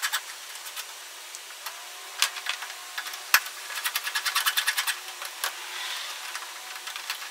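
Hand ratchet clicking in quick runs as it is worked back and forth on a socket on an engine bolt, with a few sharper single clinks of metal.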